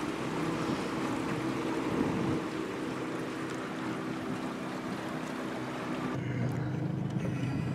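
A small boat's outboard motor running steadily under way, with wind and water rushing past. About six seconds in, the motor's note drops lower.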